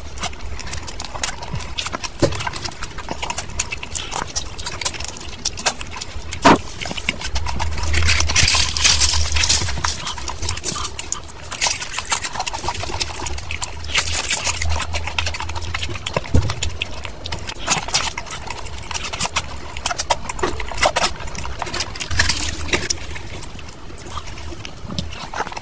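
Close-miked chewing and wet mouth smacking as curried meat is eaten by hand, with many small sticky clicks and a few louder stretches of squelchy chewing.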